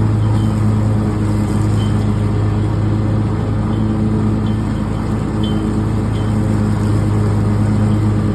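Riding lawn mower engine running steadily under mowing load, a constant low hum. Faint short high chirps come now and then over it.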